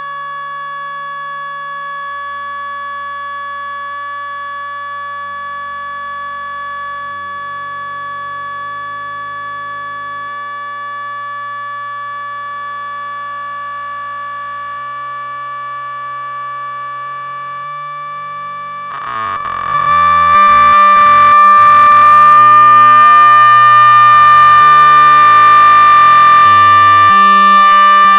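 A held, droning electronic tone with a bagpipe-like quality sounds over low notes that change every second or so. About 19 s in it jumps much louder and turns harsh and distorted.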